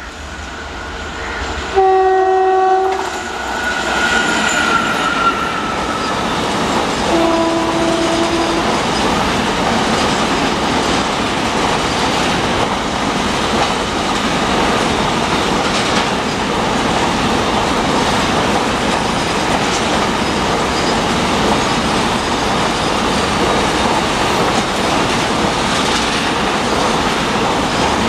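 Indian Railways WAG-7 electric locomotive sounding its horn twice as it approaches: a short blast about two seconds in, then a slightly lower, longer one around seven seconds. Then the steady rolling noise of a long rake of enclosed car-carrier wagons running past at speed.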